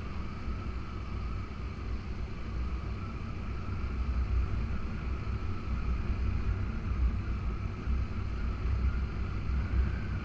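Motorcycle riding along at a steady speed: a steady low rumble of wind buffeting the microphone, with a faint steady higher tone from the running bike.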